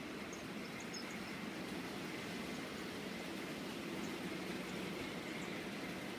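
Model trains running on a layout: a steady whirr of small electric motors and wheels on track, with a few light ticks in the first second.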